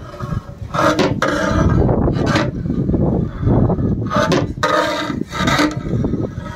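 A long flat paddle scraping through a big pot of cooked mutton biryani rice as it is turned, in a series of rasping strokes with a rumbling stretch in the middle.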